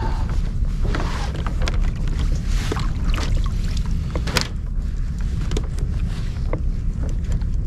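Steady wind rumble on the microphone over water at a plastic kayak, with scattered light knocks and scrapes as anchor rope is paid out over the side.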